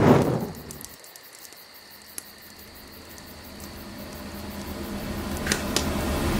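Faint insect chirping at night with a few sharp crackles from a campfire, after a short loud rush at the very start. A low drone builds steadily louder through the second half.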